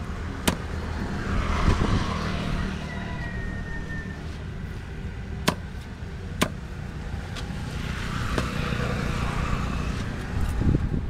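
A heavy curved fish knife chops fish on a wooden block in about four sharp single strikes, spaced a second to several seconds apart. Two passing vehicles swell and fade in the background over a steady low rumble.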